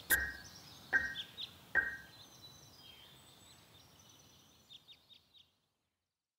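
Three sharp knocks under a second apart, each with a brief high ring, overlapped by short high bird-like chirps that thin out and stop about five and a half seconds in.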